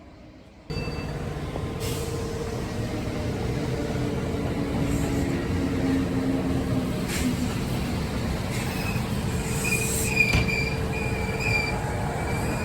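Kintetsu electric train running through the station. The sound starts abruptly under a second in, and high wheel squeal on the rails comes and goes in the second half.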